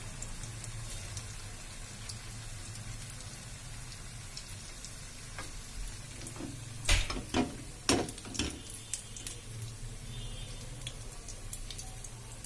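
Potato patties shallow-frying in hot oil in a pan on a low gas flame: a steady sizzle with small pops and crackles. About seven seconds in comes a short run of louder knocks.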